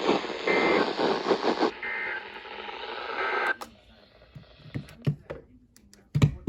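NOAA Weather Radio receiver sending the EAS end-of-message code through heavy static hiss: three short two-tone data warbles about a second and a half apart. The audio cuts off about three and a half seconds in, followed by scattered clicks and a thump from the radio being handled.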